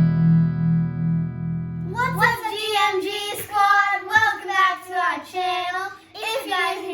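A guitar chord rings out and cuts off a couple of seconds in. A child then sings a melody over the tail of the chord.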